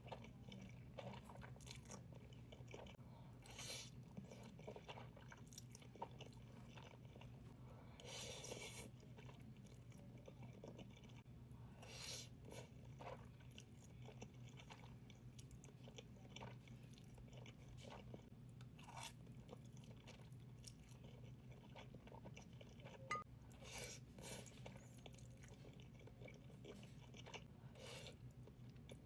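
Faint close-up eating sounds of someone chewing buldak spicy noodles: irregular soft clicks, smacks and crunchy bites, over a low steady hum.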